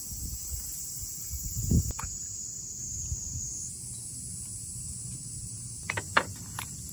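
A few light knocks and clicks from handling a small glass bottle and a steel bowl on a wooden table, one knock and click about two seconds in and a quick cluster of clicks near the end. Under them runs a steady high-pitched insect chorus.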